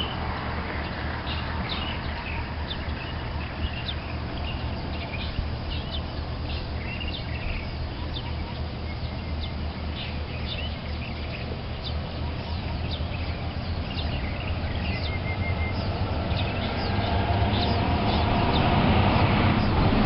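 Birds chirping, many short high calls, over a steady low rumble that grows louder near the end.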